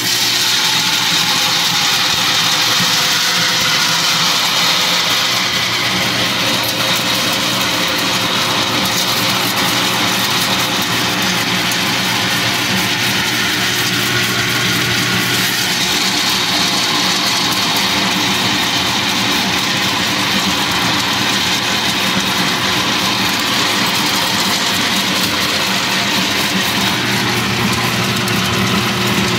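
Electric açaí pulping machine running steadily, its small motor spinning the part inside the drum that separates the pulp from the seeds. A constant low hum under an even whirring noise.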